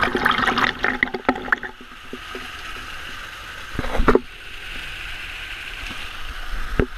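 Small waterfall pouring and splashing directly onto the camera: a dense crackle of splashing for the first second or two, then a steady rush of falling water. A thump comes about four seconds in and another near the end.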